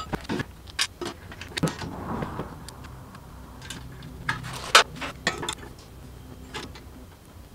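Rear rack-mounted e-bike battery being handled and slid into its mount on the metal rear rack: a run of sharp clicks and knocks, the loudest a little under five seconds in.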